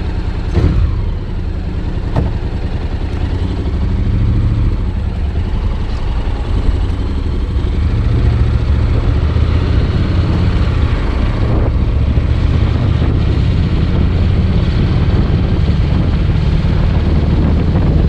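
Honda X-ADV 750's parallel-twin engine running steadily at cruising speed, with heavy wind rush on the helmet-mounted action-camera microphone.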